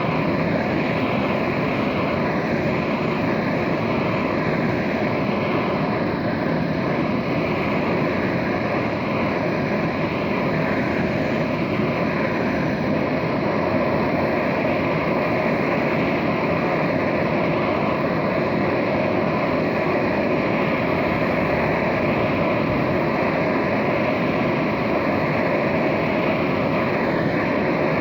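Handheld gas torch flame burning steadily, heating a motorized-bicycle engine's crankcase so the metal expands to take the crank bearing.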